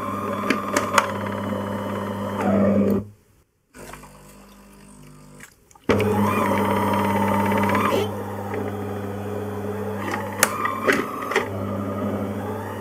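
DeLonghi fully automatic coffee machine running with a low motor hum and a high wavering squeal, with scattered clicks. It stops about three seconds in, then starts again about six seconds in and runs until near the end. The squeak is a fault, and the brew group is the first suspect.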